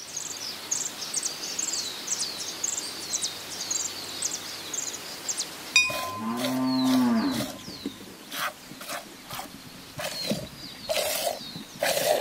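Birds chirping in quick, repeated high calls, then about halfway through a cow moos once, a long call that rises and falls. After it comes a string of short, sharp sounds, a few every second.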